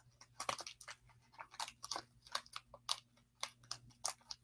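Crumpled newspaper ball crinkling and crunching as thick masking tape is wrapped and pressed onto it, in quick irregular crackles.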